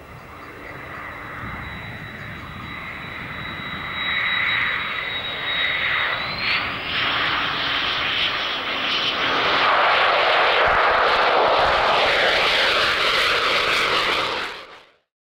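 F-15 Eagle's twin turbofan jet engines, growing steadily louder as the jet comes in low with its gear down. A high whine in the engine noise rises in pitch about six seconds in, and the sound is loudest over the last few seconds before it cuts off suddenly.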